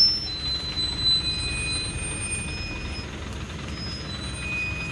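Brakes of a Thaco Foland truck loaded with acacia logs squealing as it creeps down a steep rocky track. The squeal holds steady high pitches that jump between several notes, over a low rumble of the engine and tyres.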